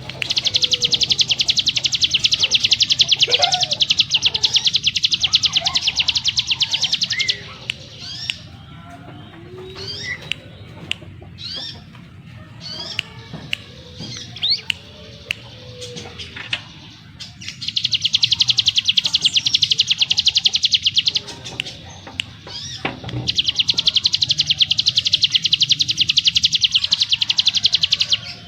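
Ciblek gunung (a prinia) singing: three long, very fast buzzing trills, the 'ngebren' song, with short sharp rising notes in the gaps between them.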